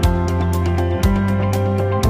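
Background music with a steady beat: held notes over a bass line that changes with a strong low hit about once a second, and lighter regular ticks between the hits.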